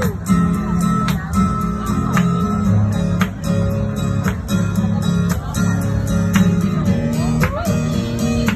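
Live pop music: strummed acoustic guitar over a steady beat and a repeating bass line.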